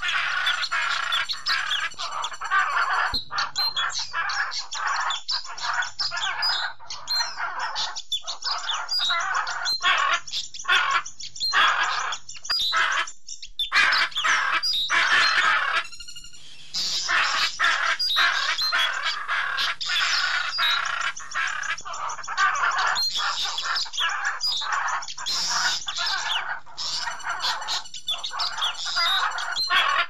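A flock of parrots chattering and chirping, many short overlapping calls at once. The calls break off briefly about 13 seconds in and again about 16 seconds in before carrying on.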